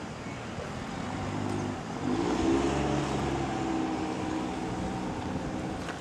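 A car engine running steadily at a low, even pitch, growing louder about two seconds in and then slowly easing off, over street traffic noise.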